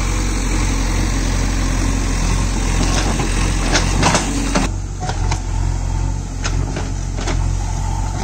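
JCB 3DX backhoe loader's diesel engine running under load as the backhoe arm digs and swings, with a few sharp knocks and clanks from the bucket and arm. About halfway through the higher hiss falls away and the machine runs on quieter and lower.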